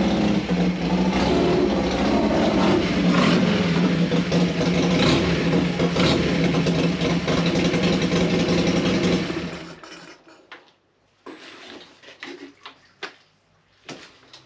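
Harley-Davidson Sportster's air-cooled V-twin engine running at low speed as the motorcycle rolls into a garage. It is switched off about nine and a half seconds in, and a few light clicks and knocks follow.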